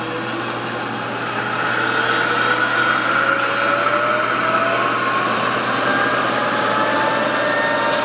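Spindle and variable-speed belt drive of an Acer Ultima 3VKH vertical milling machine running under its 3 HP motor. A steady machine whine rises in pitch over the first few seconds as the spindle speed is turned up, then holds.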